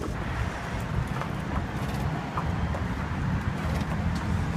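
A steady low rumble of outdoor background noise, with a few faint, scattered clops of horses' hooves on the pavement as they walk.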